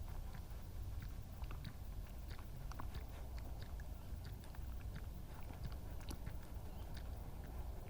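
European badger lapping water in a long drink: an irregular run of small wet clicks and slurps, several a second.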